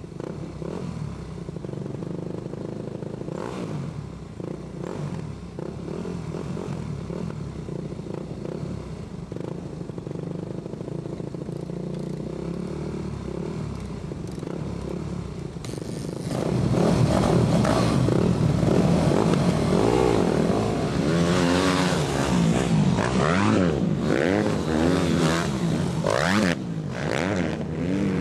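Yamaha YZ250F four-stroke single-cylinder dirt bike engine idling steadily. About sixteen seconds in the sound jumps louder as dirt-bike engines rev up and down over and over, rising and falling in pitch.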